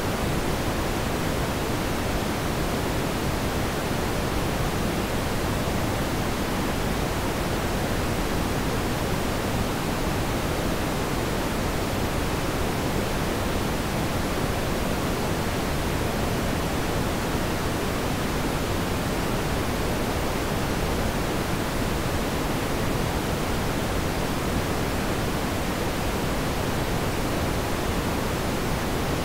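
Steady, even hiss like pink noise, with no change over the whole stretch and no engine, tyre or traffic sounds standing out from it.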